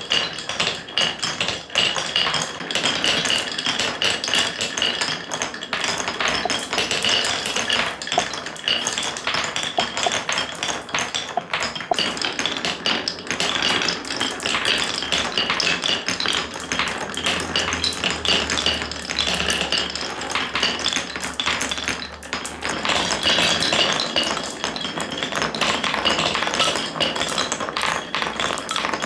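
Several marbles rolling and dropping through a wooden Cuboro and HABA marble run: a continuous dense clatter of clicks and knocks as they bump down a wavy wooden slope, run along grooved wooden blocks and hit the wood and each other.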